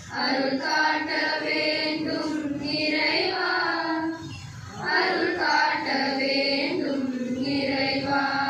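A choir of schoolchildren, mostly girls, singing together in unison, holding long notes, with a brief break between phrases about four seconds in.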